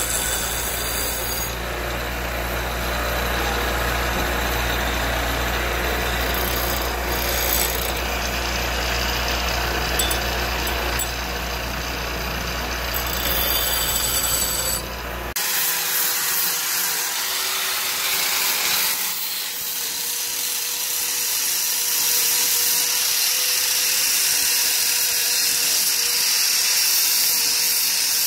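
A power tool running steadily while cutting or grinding material. About fifteen seconds in, the sound changes abruptly to a higher, hissing noise with a faint steady whine.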